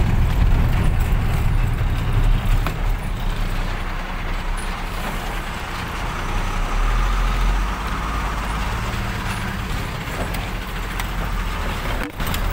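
Engine and road noise of a moving vehicle, heard from inside its cab: a steady low drone with a haze of tyre and wind noise.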